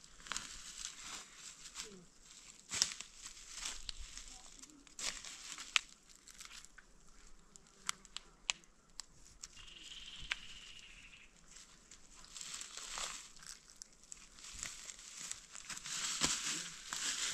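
Dry fallen leaves and stony ground rustling and crunching as hands work through them, with scattered sharp clicks of small stones and twigs.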